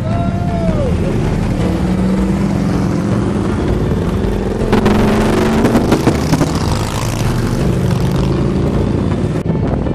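Engines of a group of cruiser and touring motorcycles riding past one after another, the pitch sliding as each bike goes by. The sound is loudest about five seconds in.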